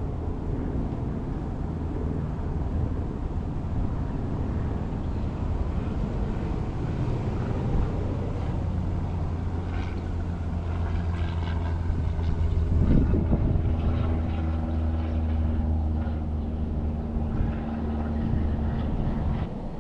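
A motor vehicle's engine running steadily as a low hum, growing louder about thirteen seconds in, when a higher steady tone joins it.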